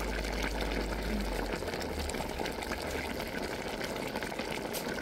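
Chicken curry bubbling and crackling as it simmers in a pot. A low hum underneath drops away about a second and a half in.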